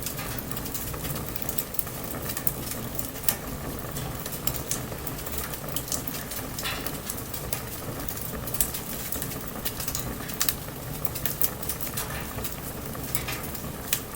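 Wood bonfire burning, a steady hiss broken by irregular sharp crackles and pops.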